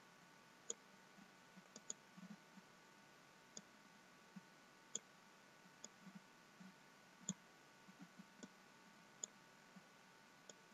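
Faint computer mouse button clicks, single clicks scattered about a second apart.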